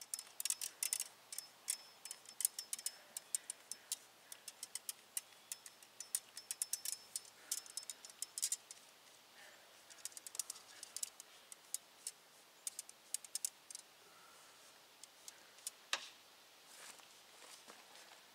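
Faint, irregular light metallic clicking and ticking, many in quick succession, as a coil of new steel brake line is handled and unrolled. The clicks thin out later, with one sharper click near the end.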